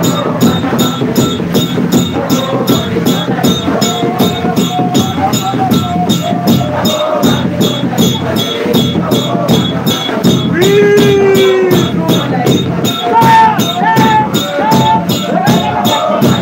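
Congregational singing over a steady jingling, drummed beat of about three strokes a second, with one loud held note about ten seconds in.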